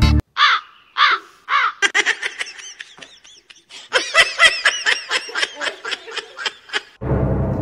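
Domestic cat vocalising: three short rising-and-falling meows, then a fast stuttering run of chattering calls, several a second, for about five seconds. Music comes in near the end.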